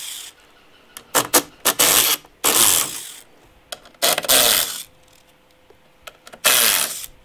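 Ryobi cordless driver running in about five short bursts, each under a second, with stops between, backing screws out of a black steel strap hinge on a wooden gate.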